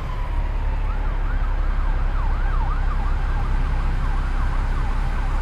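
An emergency-vehicle siren at the end of a falling wail, switching about a second in to a fast, repeating up-and-down yelp, over a steady low rumble.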